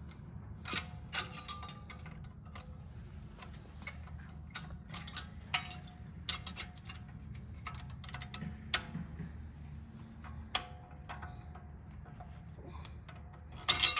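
Irregular metallic clicks and clinks, some with a short ring, as the brake pad retaining spring and pads are worked into a BMW X3 M40i's front caliper. A low steady hum runs underneath.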